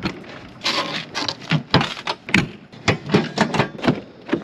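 Footsteps in flip-flops stepping down from a truck camper and walking to the truck: a run of uneven, sharp steps, about three a second.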